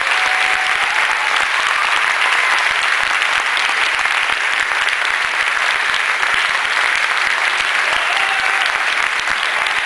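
Audience applauding steadily, many hands clapping at once, easing slightly near the end.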